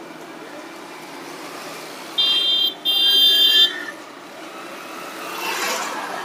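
Road traffic noise with a high-pitched vehicle horn honking twice about two seconds in, a short toot then a longer one. The traffic noise swells again near the end.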